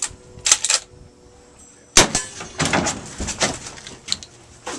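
A sharp gunshot about two seconds in, amid the metallic clicks and clatter of a lever-action gun being worked.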